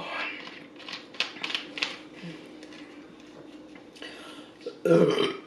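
Screw cap being twisted back onto a plastic Coca-Cola bottle: a quick run of small clicks and plastic crackles. A short vocal sound comes at the start and again near the end.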